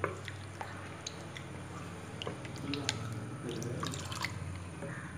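Palm-flour water being scooped with a plastic ladle and poured back through a cotton cloth into a pot to strain it: splashing and dripping, with scattered light clicks.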